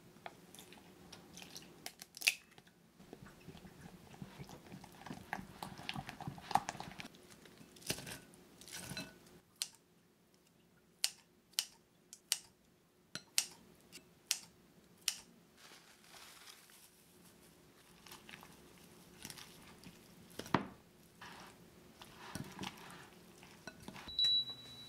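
Hand food-prep sounds at a glass mixing bowl: flour scooped in with a ladle, then a run of about six sharp snips, roughly two a second, as chicken breast is cut with kitchen scissors into shredded cabbage, then a spatula stirring okonomiyaki batter against the glass. A short high beep sounds near the end.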